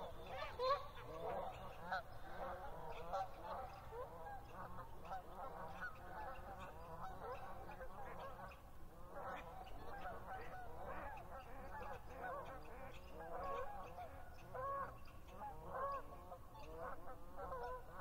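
A flock of Canada geese honking, many calls overlapping one another without pause.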